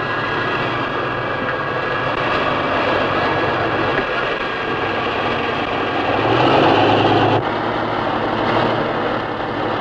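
Steady engine noise, swelling louder for about a second around six seconds in and then dropping back suddenly.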